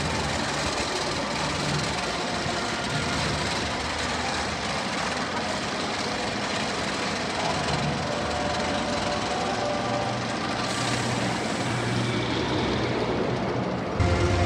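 Roller coaster chain lift running as a loaded train climbs the lift hill: a steady mechanical clatter. Near the end the sound jumps louder, with a low hum.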